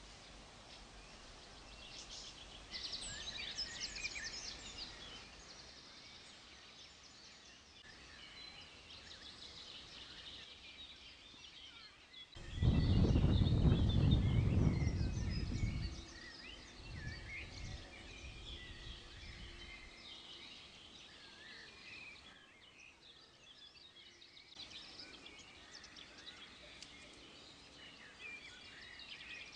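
Several songbirds singing and calling over faint steady background noise. Near the middle, a loud low rumble lasts about three and a half seconds.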